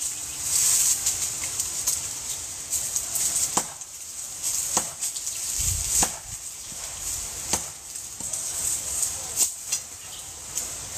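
Dead tree stump being chopped at by hand: a series of sharp wooden knocks and cracks, irregularly spaced at roughly one a second from about three seconds in, one of them with a deep thud near the middle, over a steady high hiss.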